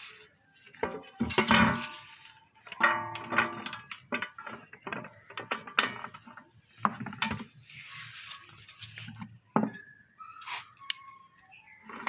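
Kitchen dishes and metal utensils being handled: irregular clinks, knocks and clatter, some with a brief ringing tone.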